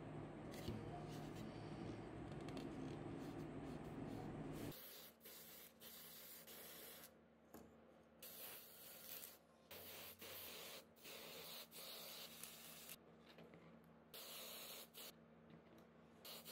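Steady rubbing for the first few seconds, then a series of short hissing bursts from an aerosol spray-paint can, each under two seconds long, as headlight parts are spray-painted.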